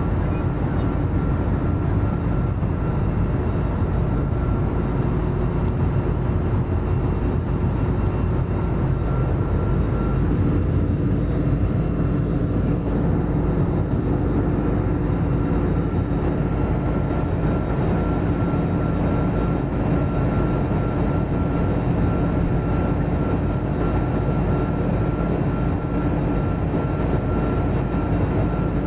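Steady cabin noise of an Airbus A320-family jet airliner in flight: a low rumble of engines and airflow with a faint, thin whine held over it.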